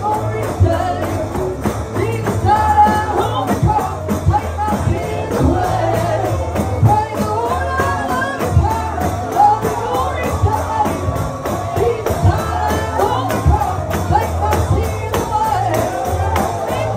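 Gospel music: voices singing over instruments, with a tambourine keeping a steady beat.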